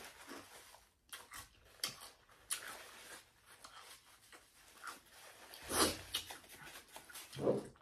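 Close-miked eating sounds: chewing with wet mouth clicks and smacks, with a louder crunch or smack about six seconds in and a brief voiced sound near the end.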